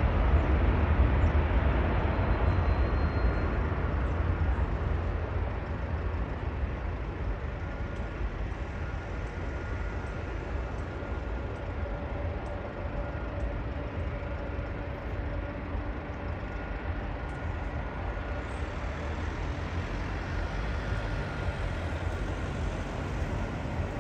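Wind rumbling on the microphone over the engine noise of a jet airliner that has just landed. The engine noise fades over the first few seconds, then holds at a low, steady level with a faint whine.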